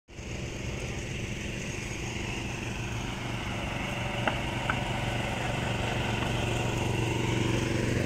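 A small engine running steadily with a low, pulsing hum that slowly grows louder. Two short high chirps come about halfway through.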